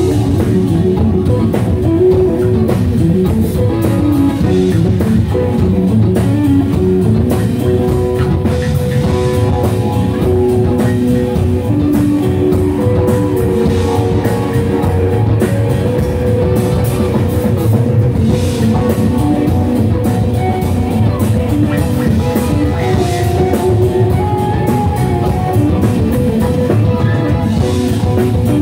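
A live rock band playing loud and steady: electric guitars, keyboard and drum kit.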